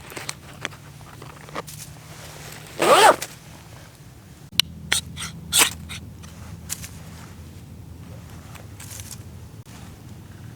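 A dog's brief vocal sound about three seconds in, followed by a handful of sharp clicks and knocks, over a steady low hum.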